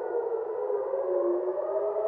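Civil defense air raid sirens wailing, several overlapping slightly out of step, their pitch sinking and then rising again about halfway through: a missile attack warning.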